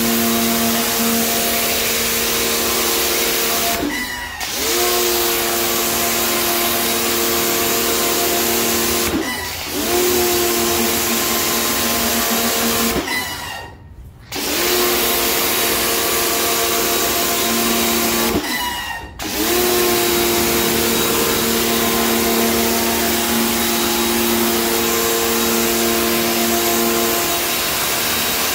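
Pressure washer running: a steady motor hum under the hiss of the water jet. The motor drops out briefly four times, about every five seconds, and each time comes back with a short rising whine.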